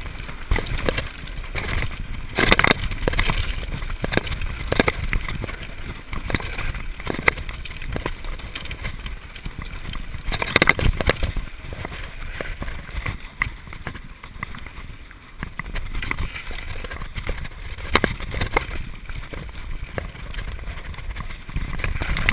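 Mountain bike riding fast down a rough dirt trail: wind buffeting the camera microphone over the rumble of tyres on dirt, with frequent rattles and knocks from the bike, louder spells of clatter about two and a half seconds in and again about ten and a half seconds in.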